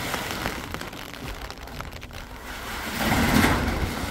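Corrugated metal roofing sheet scraping and flexing as it is dragged off a pickup bed, with a louder metallic crash about three seconds in as it is laid on the stack.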